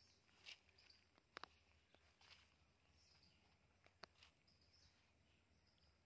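Near silence: faint outdoor ambience with a few short, high bird chirps and scattered faint clicks, including a quick double click about a second and a half in.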